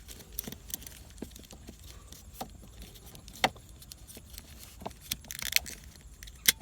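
Plastic console trim parts being handled and pushed into place, making scattered light clicks and knocks. A sharp click about three and a half seconds in, and another near the end as a part snaps home.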